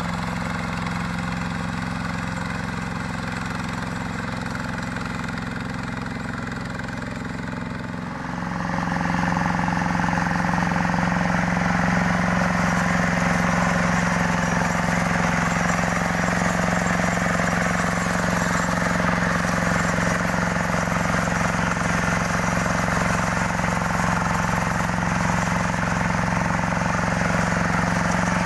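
Yanmar two-wheel hand tractor's single-cylinder diesel engine running steadily under load while its rotary tiller churns through grass and mud. It gets louder about eight seconds in.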